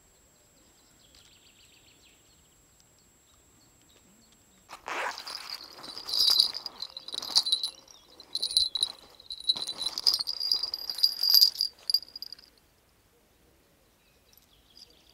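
Small bite bells on a spinning rod's tip jingling in irregular bursts as the rod is handled. The bells start with a sudden knock about five seconds in and go on for about seven seconds, after a few near-quiet seconds.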